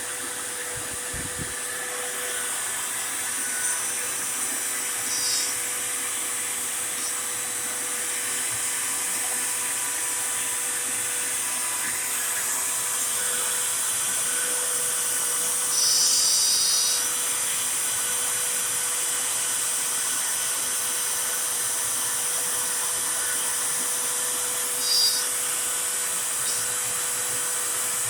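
CNC router spindle running steadily at a high-pitched whine as its bit carves a jack-o'-lantern face into a wooden board, with a dust-collection vacuum running at the bit. A few short, louder bursts of cutting stand out.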